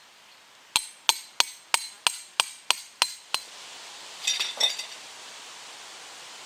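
A hammer striking nine times in quick, even succession, about three blows a second, each with a short metallic ring, then a few lighter metallic clinks.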